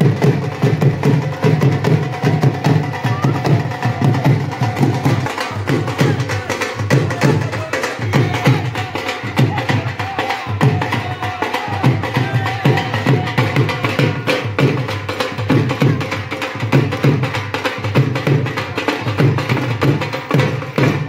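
Two dhols played together in a fast, driving beat: deep bass strokes under sharp, crisp stick strokes. The drumming stops abruptly at the end.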